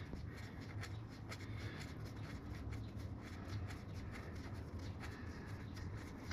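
Faint rubbing and small irregular ticks of fingers turning a motorcycle transmission drain plug out by hand, over a low steady hum.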